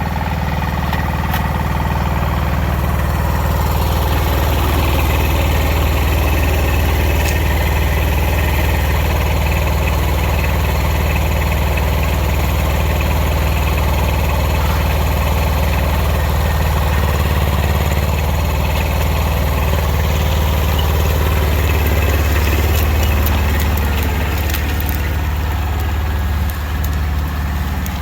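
Kubota BX1500 compact tractor's three-cylinder diesel engine running steadily, with a few faint clicks near the end.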